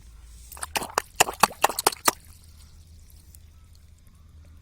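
Water splashing in a quick run of about ten sharp splats over a second and a half, then stopping.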